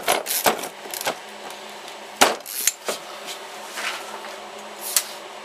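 A screwdriver driving a wood screw into stacked chipboard, with quick clicks and scrapes for about the first second. A few sharp knocks of tool and wood follow, the loudest about two seconds in and another near the end.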